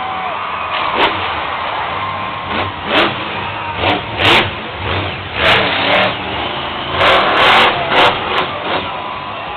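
Monster truck's engine revving hard in repeated sudden bursts, about one every second, over a continuous loud rumble, with the strongest bursts in the middle and near the end.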